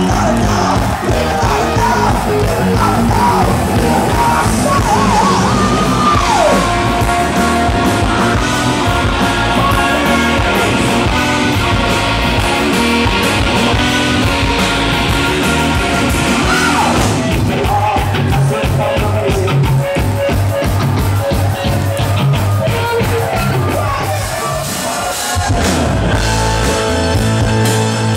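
Live rock band playing loud through a PA: a singer's amplified vocals over electric guitar and keyboards, with the beat pushing harder from about the middle on.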